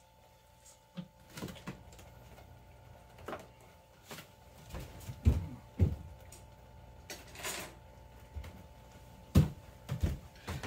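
Scattered knocks, bumps and a brief rustle of someone handling things about a small kitchen. The heaviest thumps come about five seconds in and again about nine seconds in, over a faint steady hum.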